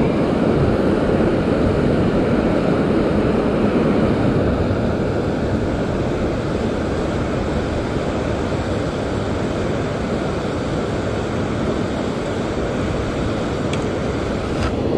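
Steady rushing of moving water, a constant even noise strongest in the low and middle range.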